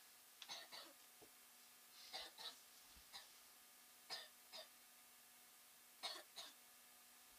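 Faint coughing: four pairs of short coughs, about two seconds apart, over a faint steady hum.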